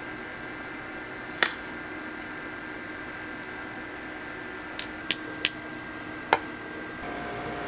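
A metal spoon clinks sharply against a stainless steel tray while a candied apple is dusted with powder: one clink, then four more in quick succession a few seconds later, over a steady kitchen appliance hum.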